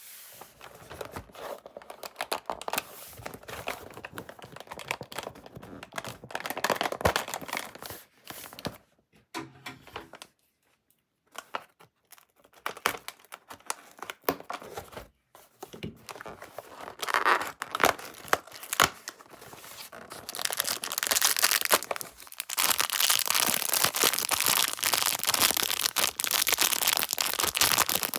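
Candy packaging being crinkled and torn open by hand, in irregular rustles. There is a short pause about ten seconds in, and the crinkling gets denser and louder from about twenty seconds in.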